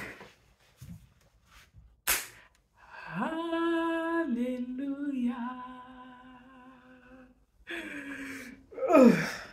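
A woman humming a long drawn-out note: her voice glides up, holds steady, then steps down to a lower note and holds it for a few seconds. Near the end comes a short vocal sound that falls in pitch.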